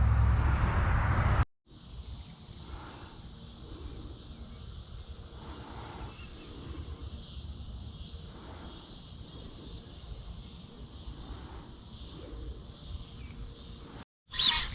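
A loud low rumble for about a second and a half. Then, after a cut, a steady outdoor chorus of insects with faint soft sounds repeating about every second and a half.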